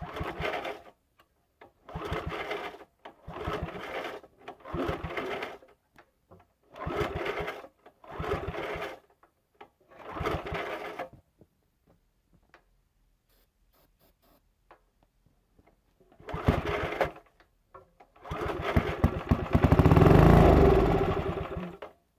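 Briggs & Stratton 4 HP single-cylinder engine on an air compressor being pull-started by its recoil starter: eight short bursts of cranking, each about a second long, without it starting. Near the end a longer, louder pull lasts about three and a half seconds and then dies away.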